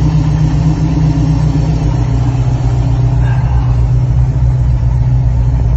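Ford Performance BOSS 347 small-block V8 crate engine running steadily, carrying a persistent internal knock that a speed shop thinks lies inside the engine.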